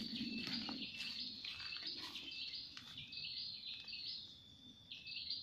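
A high, steadily repeating call from a forest animal, stepping back and forth between a higher and a lower note about three times a second, over faint rustling of footsteps on dry bamboo litter.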